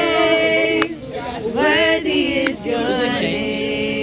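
A small group of young women singing a worship song a cappella, with long held notes between short sung phrases.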